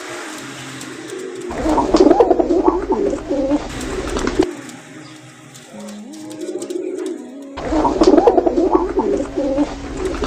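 Domestic pigeon cooing in two long rolling bouts, about a second and a half in and again near the end, each lasting about three seconds. The cooing is the bow-coo of a male courting a hen.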